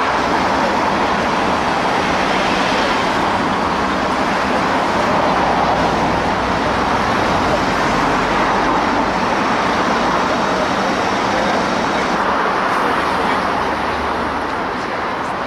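Steady road traffic noise from a busy multi-lane city road, easing slightly near the end.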